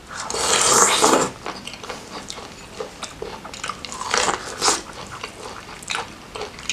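A person eating saucy seafood and corn close to the microphone: a loud wet bite and slurp about half a second in, then chewing with short smacking clicks, and another wet bite around four seconds in.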